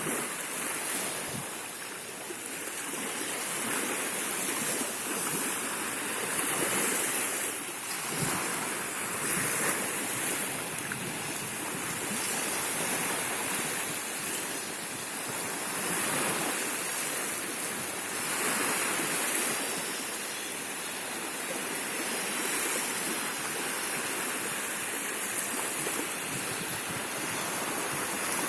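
Sea waves washing in, a steady rushing that swells and eases every few seconds.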